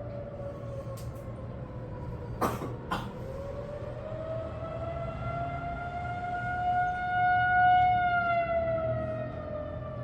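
Federal Signal 2001-230 outdoor warning siren sounding the attack signal: its wailing tone dips, then rises slowly, peaks and begins to fall again, swelling loudest a little after the middle. Two sharp clicks sound about two and a half and three seconds in.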